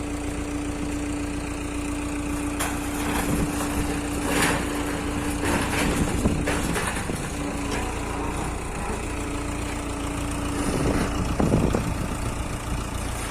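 Diesel engine of an ACE FX150 hydra crane running steadily under work, with a steady whine over it that breaks off briefly about seven seconds in and stops near the end, and several knocks and clanks scattered through.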